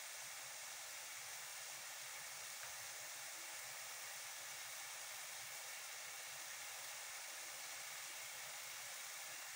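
Faint, steady hiss of onion and tomato sauce frying in an aluminium pot on a gas stove.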